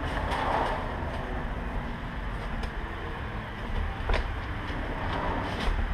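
Hands handling unboxing packaging: a small parts bag and cardboard box rustling, with one sharp click about four seconds in, over a steady low rumble.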